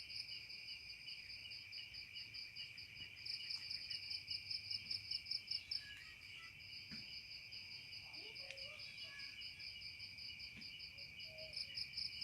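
Night insect chorus of crickets: a steady high trill with a second, rapidly pulsing chirp above it that grows louder for a couple of seconds early on.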